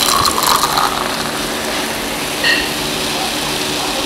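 A steady mechanical hum over a broad, even background noise, with a short high ping about two and a half seconds in.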